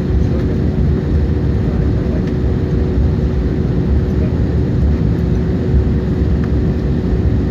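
Airliner cabin noise in flight: the steady rumble and rush of the jet engines and airflow heard from inside the cabin, with a constant low hum.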